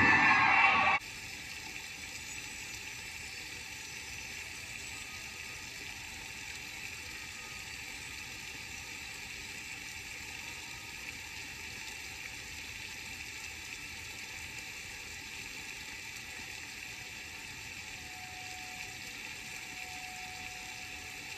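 A loud sound cuts off abruptly about a second in, leaving a steady, even hiss with no distinct events.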